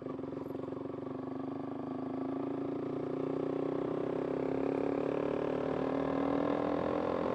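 Motorcycle engine running under way, its pitch and loudness rising slowly and steadily as it accelerates.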